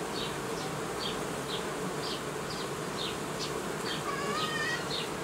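Honeybees humming steadily around an open hive while a brood frame is held up out of it, with short high chirps about twice a second over the hum.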